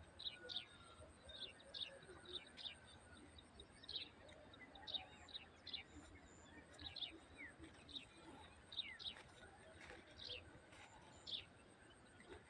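Small birds chirping: short, high, sharp chirps, about two a second, over a faint background hiss.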